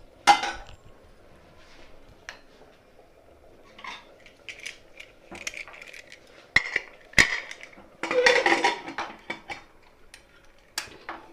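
Metal clinks and knocks on a pressure cooker: a ladle tapping the pot, two sharp knocks about two thirds of the way through, then a second-long clatter as the lid is fitted, with a couple of clicks near the end as the whistle weight goes on.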